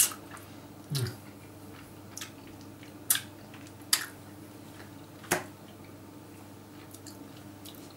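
A few short, sharp lip smacks and mouth clicks, a second or so apart, from a man savouring a mouthful of food, over a faint steady hum.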